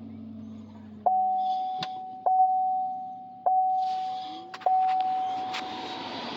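Truck's dashboard warning chime ringing four times, about once every 1.2 s, then near the end a steady rush of air as the newly installed heater blower motor starts up.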